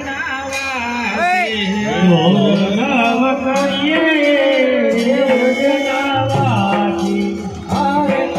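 A song playing: a singing voice with a gliding, ornamented melody over instrumental backing. A low bass line comes in about six seconds in.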